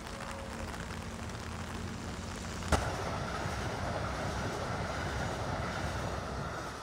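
Passenger train running over a steel railway bridge overhead: a steady rush of wheel and rail noise that starts about two and a half seconds in with a sharp click. Before it, a quieter rain-soaked street ambience with a low hum.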